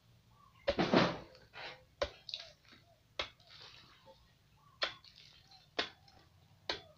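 A long digging bar being driven repeatedly into a hard, dry termite mound to break it up: sharp strikes of the bar into the packed earth, about one a second, the first one loudest.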